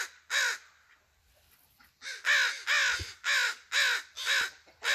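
Crows cawing, yelling at a person they are following: a couple of caws, a pause of about a second and a half, then a steady run of repeated caws, about two a second.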